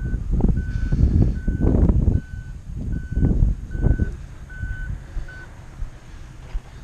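A vehicle's reversing alarm beeping: a single high tone repeated about every three-quarters of a second, stopping about five and a half seconds in. Bursts of low rumble run under it and are the loudest thing early on.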